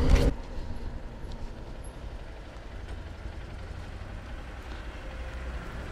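Honda XR150L's single-cylinder engine running steadily, a low rumble with no change in pitch.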